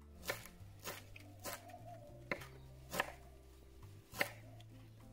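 Kitchen knife chopping fresh greens on a wooden cutting board: six separate cuts, spaced about half a second to a second apart.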